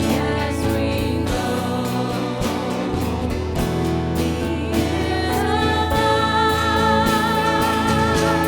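Worship music: singing with instrumental accompaniment. From about five seconds in, a voice holds a long note with vibrato.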